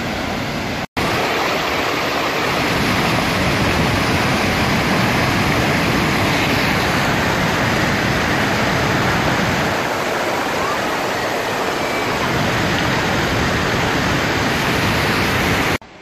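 Waterfall and fast-flowing beck: a loud, steady rush of water. It breaks off for an instant about a second in and cuts off abruptly just before the end.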